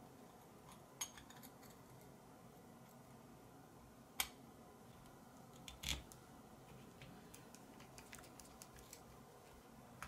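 Small metal clicks and taps as the cover plate is fitted onto the crankcase of a Teching 5-cylinder radial engine model: a sharp click about four seconds in, another near six seconds, and a run of faint light ticks after that.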